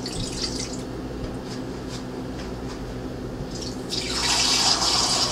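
Water poured from a small glass into the stainless inner pot of an Instant Pot pressure cooker, splashing briefly at the start. About four seconds in, a kitchen faucet is turned on and runs into a stainless steel sink; this is the loudest sound.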